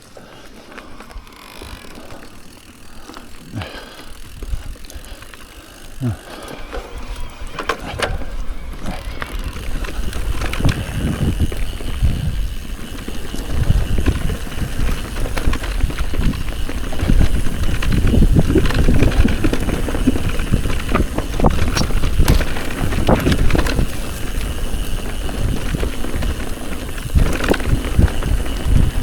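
Mountain bike ridden down a trail: tyres on dirt, with the chain and bike rattling over bumps and wind rumbling on the microphone. It grows louder from about ten seconds in as speed builds.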